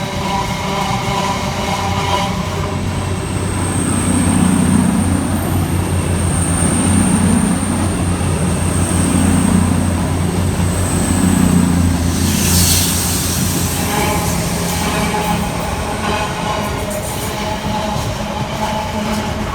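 Long intermodal freight train rolling through the station: a steady, loud low rumble of wagons that swells every couple of seconds. A high, steady wheel squeal lasts for several seconds, and there is a short hissing burst about two-thirds of the way through.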